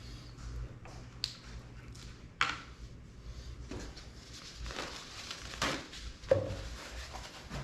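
Scattered clicks and taps of hands working parts into a drone's plastic motor housing during a motor swap, with a few sharper knocks, the loudest about six seconds in, over a low steady hum.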